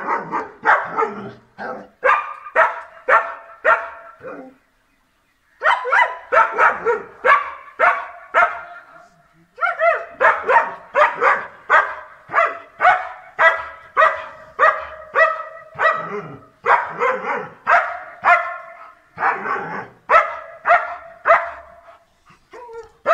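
German Shepherd barking over and over, about two barks a second, in long runs with a pause of about a second near the fifth second.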